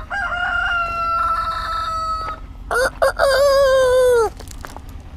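Roosters crowing: two long crows, one after the other, the second lower-pitched, starting in short choppy notes and ending in a held note that drops away.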